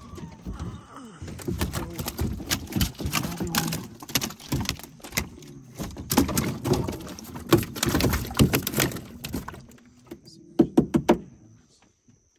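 Freshly shot fish being handled in a bowfishing boat, thumping and slapping against the metal deck and fish tub in a long run of irregular knocks, then a few sharp loud knocks near the end.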